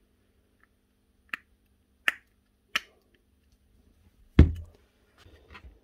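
Metal parts of a nibbler's gear head being handled and set down on a workbench: three light clicks, then a heavier knock about four seconds in, followed by faint small rattles.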